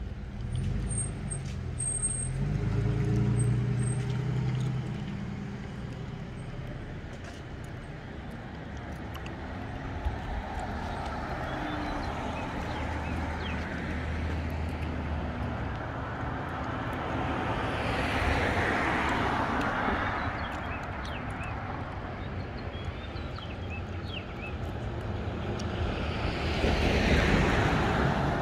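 Street traffic: at first a vehicle engine hums low and steady. Then cars pass by, their tyre noise swelling and fading about two-thirds of the way in and again near the end as an SUV drives past.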